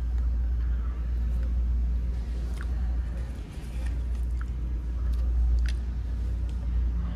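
A steady low rumble, with a few faint light clicks in the middle.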